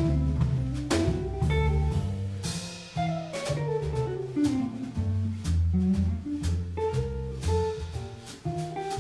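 Live jazz: an archtop guitar playing a melodic line over double bass and a drum kit keeping time with steady cymbal strokes.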